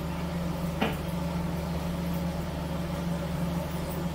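The car ferry's MWM diesel engine droning steadily, heard inside the wheelhouse, with a single sharp click just under a second in.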